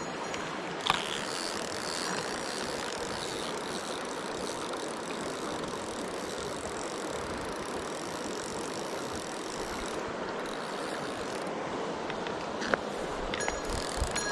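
Steady rushing of a mountain stream, with a sharp click about a second in and a couple more near the end.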